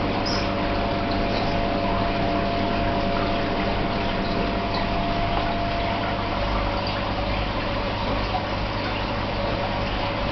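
Aquarium filter or pump running with a steady rush of moving water and a steady low hum underneath.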